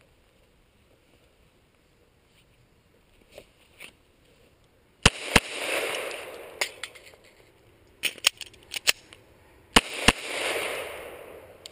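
Glock 17 9mm pistol fired in two quick double taps, about 5 s and 10 s in, each pair followed by a long rolling echo. Several fainter sharp cracks come between the pairs.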